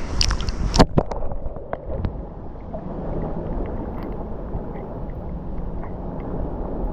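Small ocean waves washing and lapping against a beach shore, a steady churning wash with a few sharp splashes about a second in.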